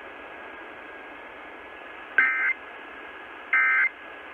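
Emergency Alert System end-of-message code: two short bursts of digital data tone about a second and a half apart, the first about two seconds in, signalling that the required monthly test is over. They come through a radio receiver over a steady hiss.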